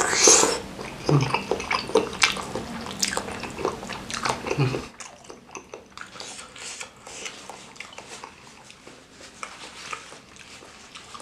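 Close-up mouth sounds of someone biting into and chewing a soft bakso aci (tapioca meatball) in chilli broth: wet clicks and smacks, louder for the first five seconds or so, then quieter chewing.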